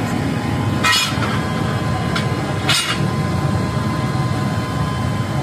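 A steel bone cleaver clinking against an iron anvil as it is handled after quenching: two sharp metallic clinks about two seconds apart, with a fainter one between them, over a steady background noise.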